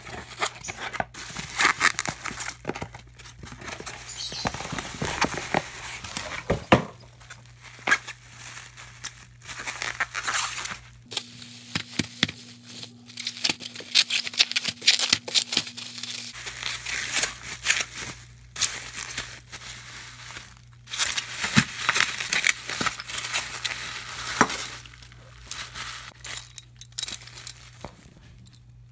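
Bubble wrap crinkling and rustling as it is handled and unwrapped by hand, in irregular spells of crackling with short pauses, thinning out near the end.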